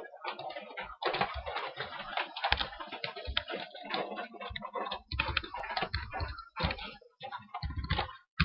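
Computer keyboard being typed on: a quick, uneven run of keystrokes as a password is entered, starting about a second in.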